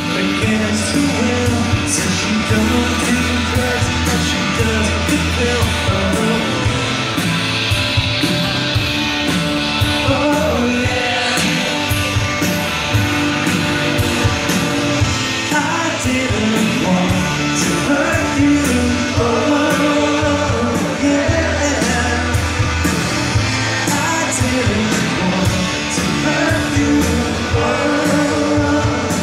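Live rock band playing through a big outdoor PA, with electric guitars, bass, drums and a singing voice, heard from within the audience.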